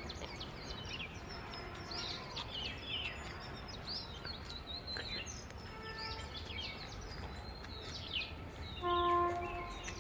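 Many birds chirping over a steady rumble of traffic. A vehicle horn honks briefly about six seconds in and again, louder, about nine seconds in.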